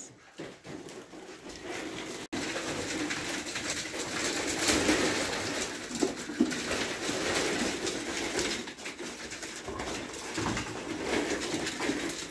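Ferrets scrabbling and scuffling through corrugated plastic play tubes, a busy, continuous rustling with many small knocks.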